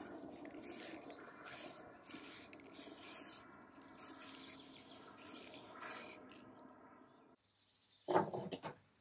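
Aerosol spray-paint can hissing in about eight short bursts as brass-coloured paint is sprayed onto thin metal rails. Near the end, a brief clatter of handling noise.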